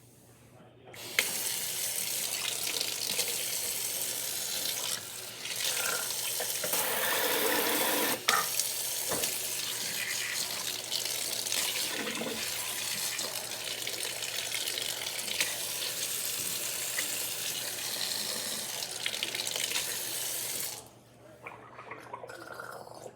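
Sink tap turned on about a second in, water running and splashing steadily, louder for a couple of seconds in the middle, then shut off near the end.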